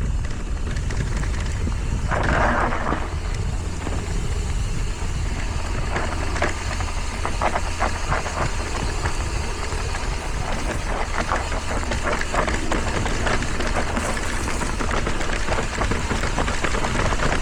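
Wind rushing over the microphone and tyres on dirt during a fast mountain-bike downhill run, with the bike clattering and rattling over rough ground in the middle stretch.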